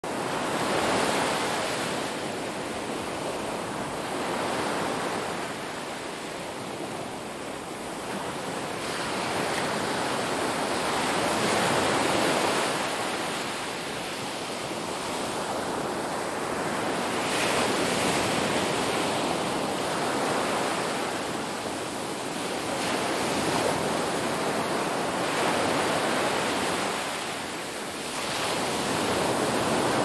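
Ocean surf: waves washing in, a steady hiss that swells and fades every few seconds.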